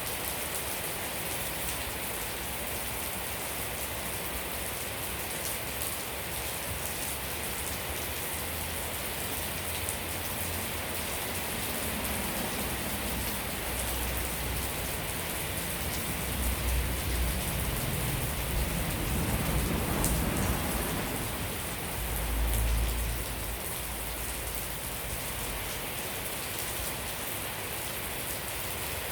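Steady rain falling, an even hiss of many drops. A low rumble swells up about halfway through and again shortly after, then fades back under the rain.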